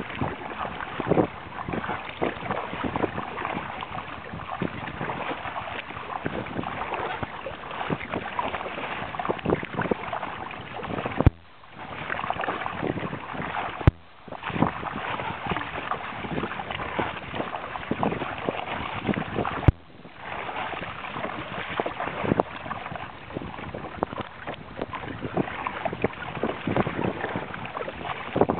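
Water splashing and sloshing against a plastic sit-on-top kayak's hull on the sea, with wind buffeting the microphone. Three times a sharp click is followed by a moment's quiet.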